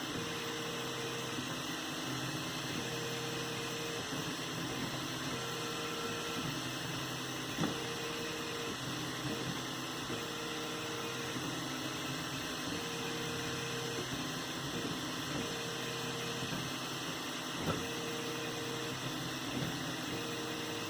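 3D printer running: an even fan hiss with the stepper motors humming in short steady tones that start and stop about every second or so as the print head moves, and a couple of faint clicks.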